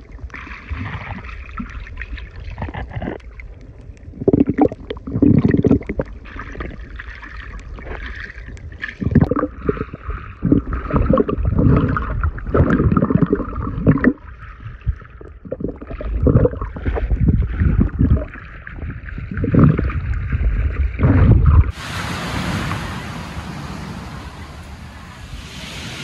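Water gurgling and sloshing, muffled as heard through an underwater camera's housing, with irregular low surges of water rushing past. About 22 seconds in it cuts to open-air beach sound, a steady hiss of surf and wind.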